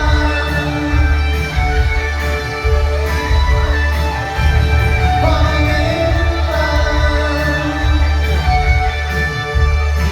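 Live rock band playing: electric guitar and a heavy bass line over steady drums with regular cymbal hits.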